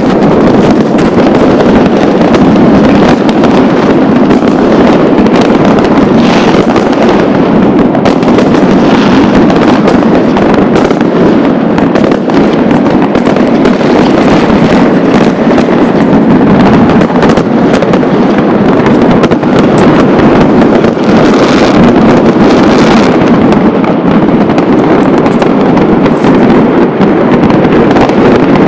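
Dense, unbroken barrage of fireworks and firecrackers, countless bangs and crackles running together into one loud, constant din with no gaps.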